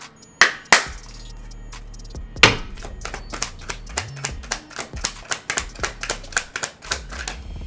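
A deck of oracle cards shuffled by hand: a few sharp slaps of the cards in the first couple of seconds, then a quick run of light, rapid card clicks.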